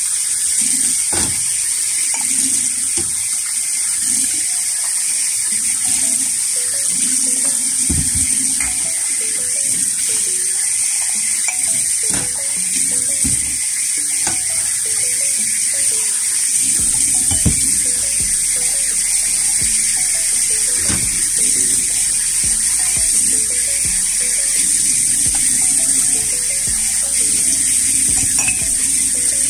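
Tap water running steadily into a sink while plates and glasses are rinsed by hand, with scattered clinks of dishes knocking together.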